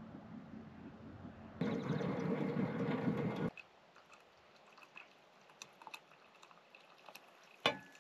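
Coffee poured from a stainless steel percolator pot into a stainless steel tumbler: a loud splashing stream for about two seconds, then much quieter with faint drips and ticks, and a sharp click near the end.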